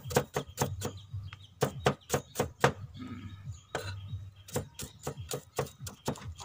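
Cleaver chopping shallots on a wooden chopping block: quick, even strokes at about four a second, with a short break about three seconds in before the chopping resumes.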